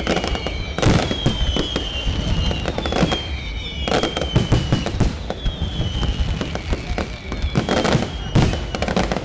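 Fireworks finale: a dense run of bangs from bursting aerial shells and rockets, with whistles that each fall in pitch over about a second, around six times.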